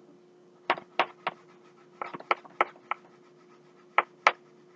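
Crayon coloring on paper: about ten short scratchy strokes, some in quick pairs, over a faint steady hum.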